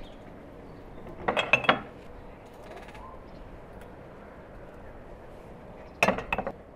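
A small metal spoon clinking against metal kitchenware, in two quick bursts of a few taps each with brief ringing: one a little over a second in, one near the end.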